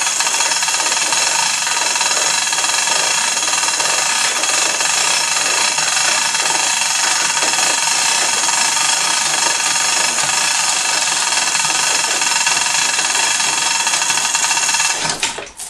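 Electric chain hoist motor running steadily under load as it lifts an engine and transaxle, a constant high-pitched whine. It stops about a second before the end.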